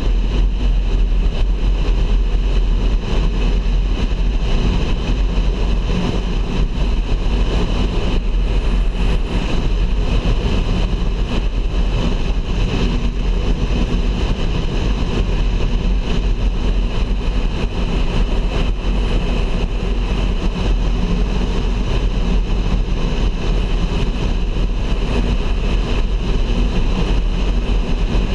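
Car driving at a steady speed on a highway: steady engine and tyre noise over a deep rumble.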